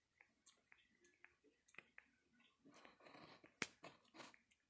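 Faint clicks and rustles of a Java macaque grooming a person's hair right by the microphone, its fingers picking and parting the strands, with a soft rustle a little before a single sharp tap about three and a half seconds in.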